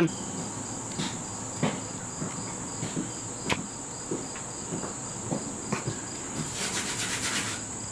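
A steady high-pitched insect trill, typical of crickets, with a few light knocks and clicks scattered through it.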